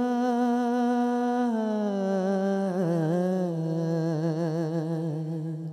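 A solo male voice sings an Urdu hamd unaccompanied, drawing out long wordless notes. He holds one pitch, slides down to a lower note about a second and a half in, and adds quick ornamental turns around three seconds in. The phrase ends on a long note with vibrato.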